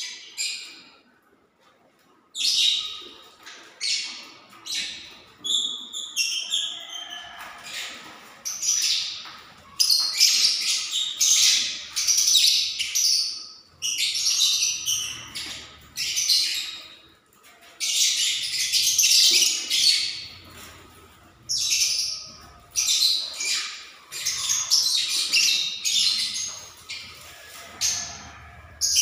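A flock of lovebirds in an aviary chattering and calling, with shrill squawks coming in quick clustered runs. The calls start about two seconds in and go on almost without pause.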